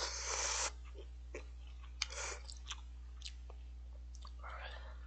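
A person slurping instant cup-ramen noodles, with a loud slurp at the start. Then chewing, with scattered short mouth clicks and smacks.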